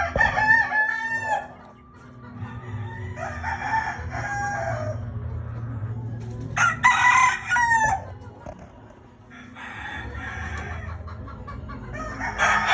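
Sweater x Hatch gamefowl roosters crowing, several crows one after another with short gaps between them.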